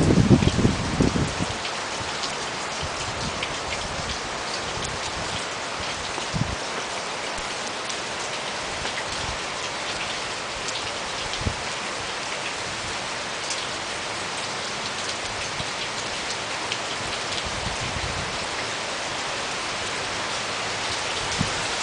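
Steady rain falling, with scattered sharp hits of individual drops landing close by. A brief low rumble sounds in the first second.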